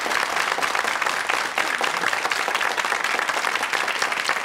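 Studio audience applauding: many people clapping steadily together.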